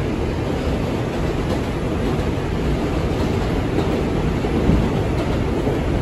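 R142 subway car running steadily between stations, a constant low rumble of wheels on the rails and car body noise heard from inside the car.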